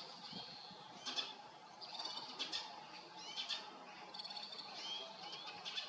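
Small birds chirping: short rising chirps and quick trills, repeating about once a second.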